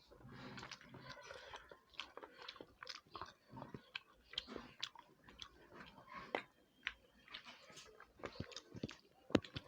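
People chewing and biting food close to the microphone: irregular small clicks and smacks of mouths eating a meal.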